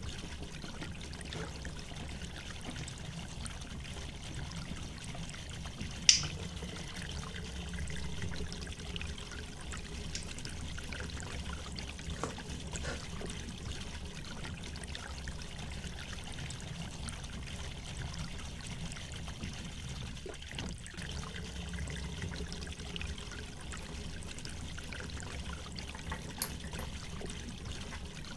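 Steady low background hum and hiss, with a sharp click about six seconds in and a fainter one near the end.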